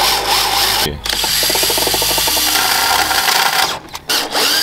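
12-volt cordless drill boring holes through the steel body of a Mazda MX-5 at the chassis rail, for the rollbar mounting bolts. It runs in bursts, stopping briefly about a second in and again near the end.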